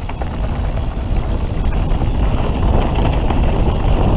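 Wind buffeting the camera microphone and knobby tyres rumbling over a dirt trail as a full-suspension mountain bike descends at speed, with occasional faint clicks and rattles from the bike.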